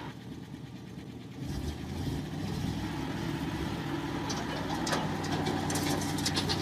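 A vehicle engine running steadily, getting louder about a second and a half in, with a few sharp clicks or knocks in the second half.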